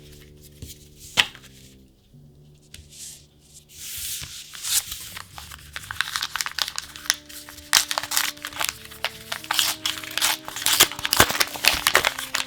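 Foil booster-pack wrapper being torn open and crinkled: a sharp snap about a second in, then a dense run of crackling rips from about four seconds in. Soft background music with long held notes plays underneath.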